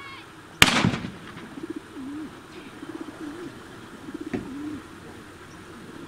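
A single loud gunshot about half a second in: the shot fired with the thrown bird for a retriever's marked retrieve. Low wavering calls follow for a few seconds, with a lighter crack about four seconds in.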